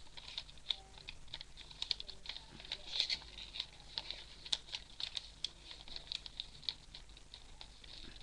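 A sheet of origami paper being folded and creased by hand, with irregular small crinkles and crackles.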